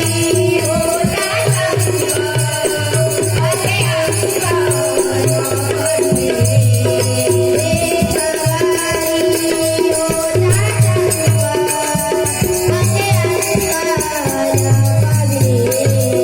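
Marathi devotional bhajan: singing voices over a harmonium's held notes, with fast steady rattling percussion and a low drum beat.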